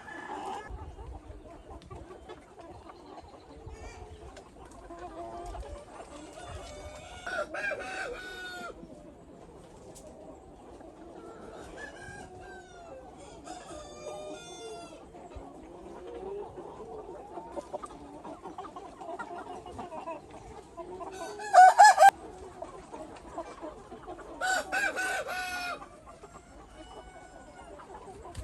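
A flock of chickens clucking steadily, with three louder, longer calls standing out, the loudest and shortest about two-thirds of the way through.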